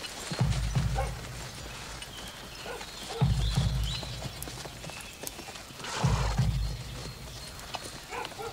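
Horses walking at a slow pace with hooves clopping, a horse passing close, and three louder low sounds about three seconds apart.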